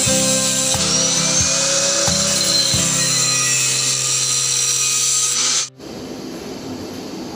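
Motor-driven four-roller pellet mill running, with a steady high whine and regular knocks; it cuts off abruptly a little under six seconds in.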